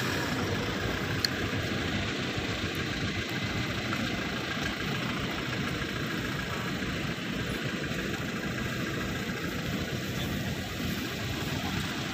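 A parked helicopter's turbine engine running at ground idle, a steady, even drone.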